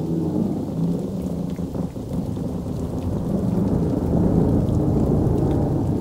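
Deep, continuous rumble like thunder or distant bombardment, growing louder about four seconds in.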